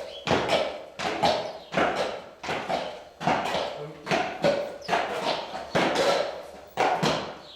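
Shod Clydesdale's hooves clopping on a hard floor at a walk, a slightly uneven run of knocks about two a second.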